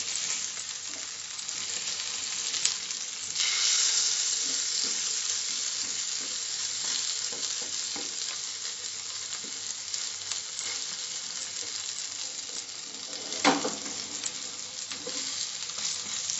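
Spice-stuffed mackerel shallow-frying in hot oil in a nonstick pan: a steady sizzle with small spatters, turned and pressed with a wooden spatula. The sizzle swells suddenly about three seconds in, and there is a short knock of the spatula against the pan about thirteen seconds in.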